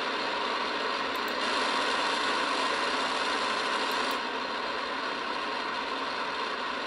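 Steady hiss of static from an SDRplay RSP Duo receiver demodulating AM on the 126.5 MHz airband, with no transmission audible through it while the cheap amplifier is in circuit. The hiss grows slightly louder and brighter from about a second and a half in until about four seconds in.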